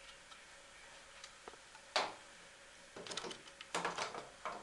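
Black plastic SOBO aquarium power head being handled and turned over in the hand: one sharp knock about two seconds in, then a run of light clicks and taps from about three seconds in.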